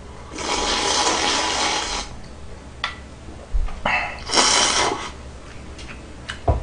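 Person slurping ramen noodles and broth from a small bowl held to the mouth: two long slurps, the first about a second and a half, the second starting about four seconds in, with a light click between.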